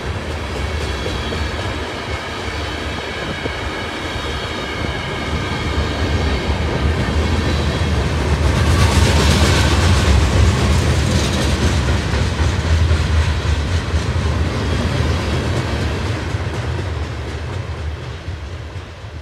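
Freight train cars rolling past close by: a steady rumble of wheels on rail, with a thin high steady ringing from the wheels over the first several seconds. It grows louder in the middle, then fades near the end as the last cars draw away.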